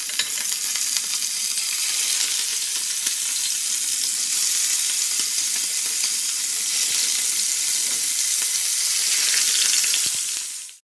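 Chicken pieces sizzling steadily in hot oil in a frying pan as more pieces are laid in; the sizzle cuts off suddenly near the end.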